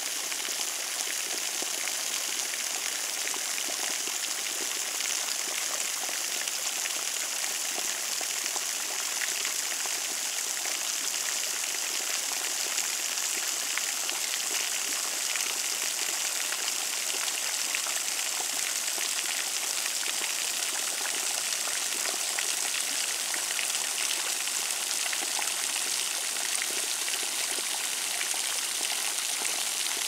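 A spring-fed drip waterfall on a travertine cliff: many thin streams and separate drops falling onto mossy rock and shallow water, a steady gentle murmur and patter.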